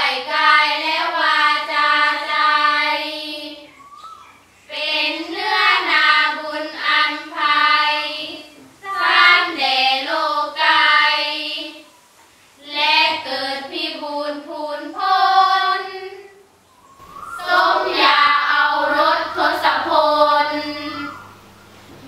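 Girls' voices singing sarabhanya, Thai Buddhist verse chanted to a melody, together as a group. The chant comes in five phrases with a short breath between each.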